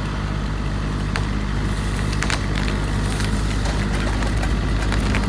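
An engine running steadily at low speed, with a few sharp snaps and cracks about one, two and three seconds in.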